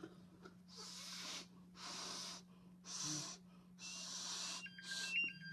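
A person breathing out onto a multigas detector's sensor inlet, about five breaths roughly a second apart, their low-oxygen breath pulling the oxygen reading down toward alarm. Near the end the MSA Altair 4X starts its low-oxygen alarm beeping.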